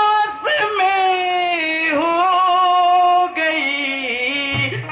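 A high voice singing long drawn-out notes, gliding from one to the next, with a wavering vibrato on the held note near the end; no instruments under it.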